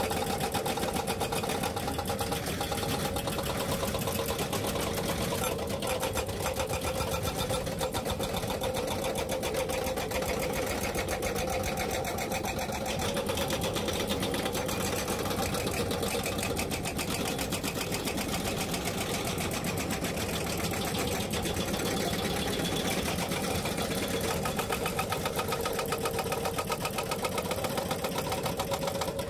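Excavator-mounted hydraulic rock breakers hammering on rock in rapid, steady blows, over the excavators' diesel engines running.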